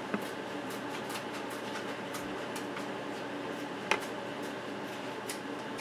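Scissors snipping through the fabric upper of a rubber-soled water shoe along the edge of the sole: a run of small irregular snips, with two louder ones near the start and about four seconds in, over a steady background hum.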